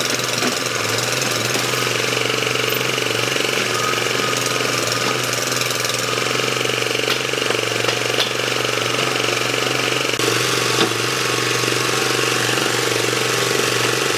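Excavator's diesel engine running steadily under load, with a few faint knocks over it.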